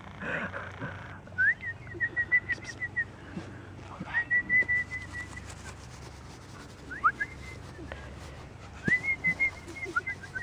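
Clear whistling in four short phrases. Each opens with a quick rising note and runs into a string of short repeated notes, or one held note, on the same high pitch.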